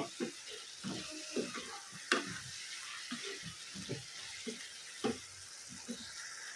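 Spinach and brinjal with spices sizzling gently in a non-stick pan on a low-to-medium flame while a wooden spatula stirs them, scraping through the vegetables with a few sharp knocks against the pan.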